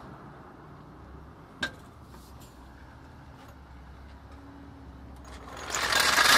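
Floor jack being worked under a car: a single sharp click about a second and a half in, then a louder rushing, scraping noise for about a second near the end.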